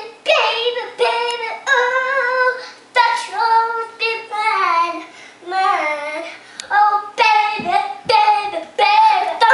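A little girl singing on her own, a high child's voice in short phrases that slide up and down, with no accompaniment.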